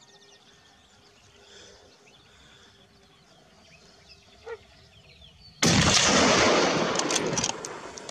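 Faint background, then a sudden, loud blast of gunfire about two-thirds of the way in that lasts about two seconds before fading, with a few sharp cracks trailing off.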